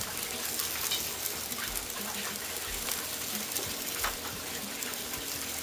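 Ribeye steak sizzling on a hot charcoal grill grate: a steady crackling hiss with scattered small pops.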